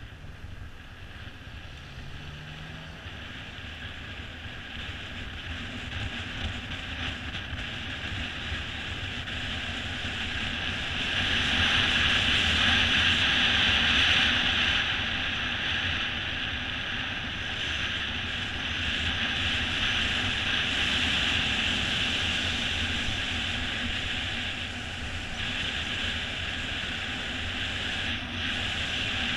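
Wind rushing over a GoPro on a moving mountain bike, with the rumble of the tyres on asphalt underneath; it grows louder over the first half and stays loud.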